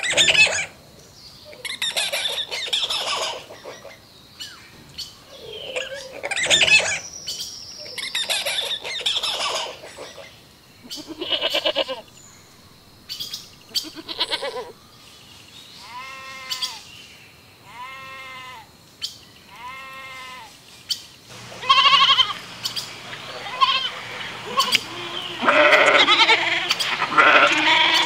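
Goat bleating: three short bleats about two seconds apart in the middle, then louder, repeated bleating near the end. Other animal calls come in the first half.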